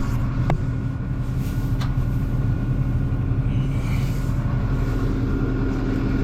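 Tractor engine running steadily under load while pulling a no-till seed drill across a pasture, with two sharp clicks or knocks in the first two seconds.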